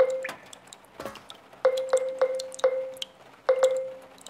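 Water drops landing in empty tin cans and glass bottles, each drop a clear ping with a short ring. The pings come in quick little groups, mostly on the same note, making a simple tune.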